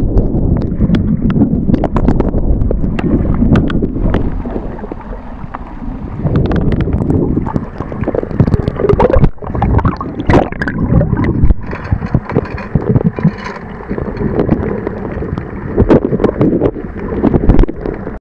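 Muffled sloshing and gurgling of seawater around a camera held at and under the surface, with many sharp clicks and knocks scattered through it.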